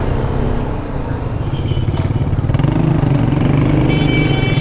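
A BMW G310GS's single-cylinder engine running at low speed in slow city traffic, getting louder from about halfway through. Near the end there is a brief high-pitched tone.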